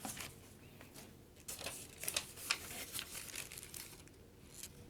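Paper and plastic packaging being handled, with irregular crinkling and rustling and a few small clicks, busiest between about one and a half and three seconds in.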